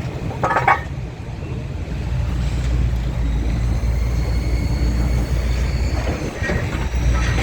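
A heavy engine running with a steady low rumble that grows louder about two seconds in, with a short metallic clatter about half a second in and another, weaker, near the end.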